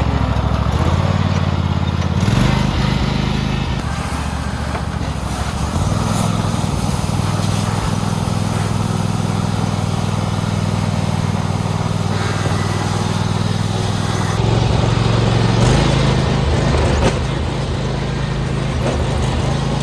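Loud, distorted amplified music dominated by held bass notes that change every few seconds, over a dense wash of noise.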